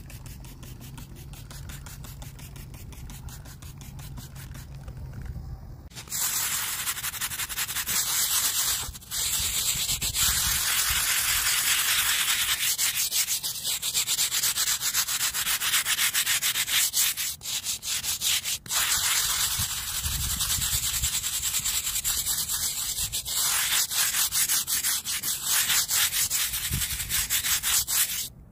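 Hand scrub brush scrubbing the wet face of a flat stone grave marker in fast, even back-and-forth strokes. The scrubbing starts about six seconds in and stops briefly twice.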